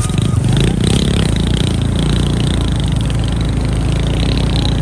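Motorcycle engine running under light, uneven throttle on a bumpy dirt trail, its pitch wobbling up and down. A high wavering buzz runs alongside it.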